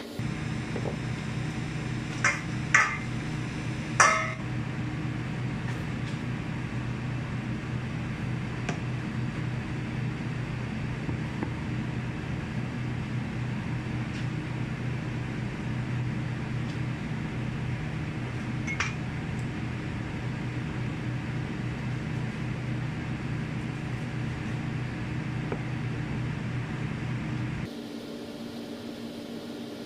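An electric kitchen appliance running with a steady hum that stops abruptly near the end. Over it, a few sharp clinks of glass or crockery come about two to four seconds in, with another later on.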